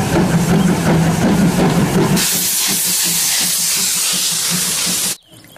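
Steam locomotive running with a rhythmic rumble, then a loud hiss of steam from about two seconds in that cuts off suddenly near the end.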